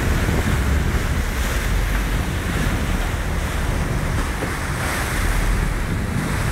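Steady rushing of a sportfishing boat's churning wake, with wind buffeting the microphone as a low rumble.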